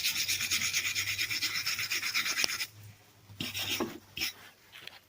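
Rapid rasping scrape of welded steel being cleaned up, which stops about two and a half seconds in, followed by a few shorter scrapes.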